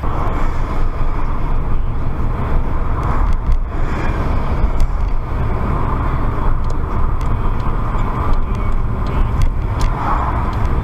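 Car driving along a city street, heard from inside the cabin: a steady engine and road rumble with tyre noise that swells and eases a few times.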